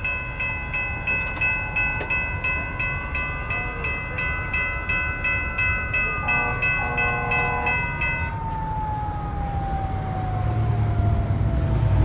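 Railroad grade-crossing bell ringing rapidly, about two and a half strokes a second, over the rumble of a fast-passing train; the bell stops about eight seconds in. A long tone slowly falls in pitch through the second half.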